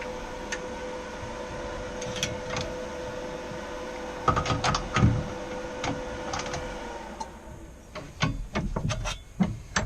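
Röhr MIG-200MI MIG welder laying a practice weld: a steady hum with scattered crackle that stops about seven seconds in. Several knocks and clatters follow near the end.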